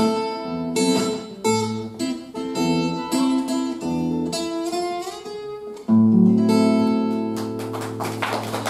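Acoustic guitar playing the song's closing bars as plucked notes and chords, ending on a final chord struck about six seconds in and left to ring. Applause begins about a second and a half before the end.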